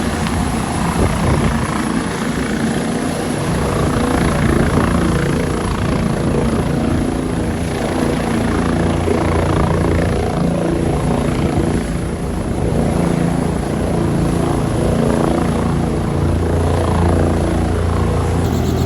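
Helicopter running: a steady drone of rotor and turbine, with several low steady tones under an even rushing noise.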